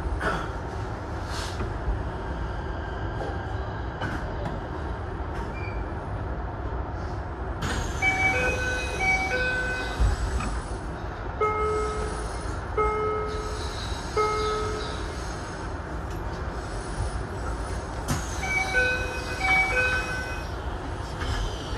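Low rumble in an electric train's cab, with a series of short electronic tones: quick paired beeps, then three longer evenly spaced tones, then paired beeps again near the end.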